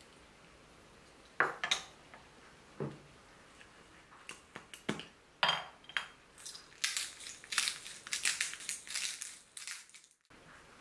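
A few sharp clinks and taps on a glass mixing bowl as sugar is tipped in from a wooden spoon, then a pepper mill grinding in a quick run of crunchy bursts for about three seconds near the end.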